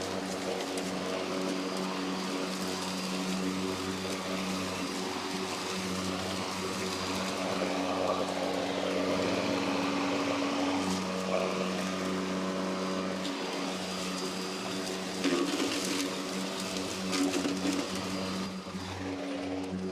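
Worx Nitro WG761E cordless battery lawnmower running while cutting grass: a steady electric motor and blade hum over the rustle of grass being cut, its pitch shifting slightly now and then.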